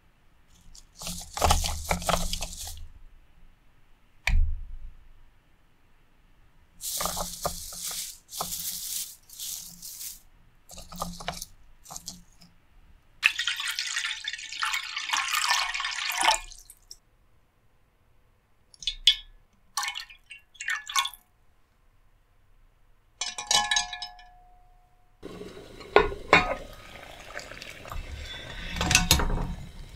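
Kitchen handling sounds: a few short rustles and a knock, then water poured into a ceramic pan for about three seconds. Later there are light clinks, and near the end quail eggs clink against each other and the pan as they go into the water.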